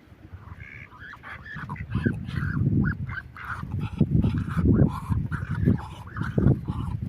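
Geese honking repeatedly, with a heavy low rumble beneath the calls that grows louder from about two seconds in.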